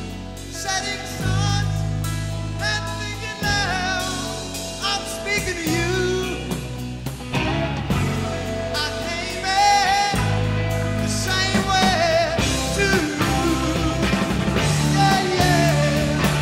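Rock song with a singing voice, guitar and drum kit.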